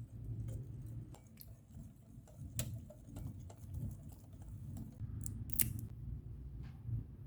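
Scattered light clicks and taps from utensils being handled, over a low steady hum.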